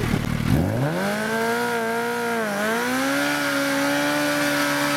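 Sport bike engine revving up from about half a second in, dipping briefly near the middle, then held at high revs during a burnout, the rear tyre spinning against the ground.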